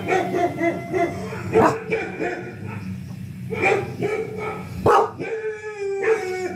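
Dog barking: three sharp barks spread over a few seconds, with drawn-out whining tones between them.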